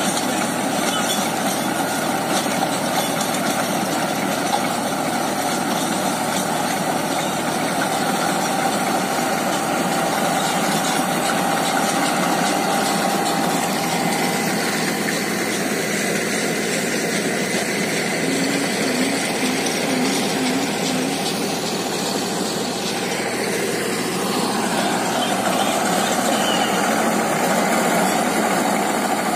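Deutz-Fahr Agrolux 75 tractor engine running steadily under load while driving a rotavator that churns through the soil. The sound is somewhat thinner in the middle and fuller again near the end.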